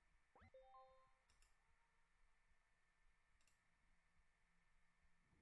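A faint MetaTrader alert chime about half a second in: a quick rising sweep into a short chord of bell-like tones, sounding as a trading-signal alarm pops up. A few faint mouse clicks follow.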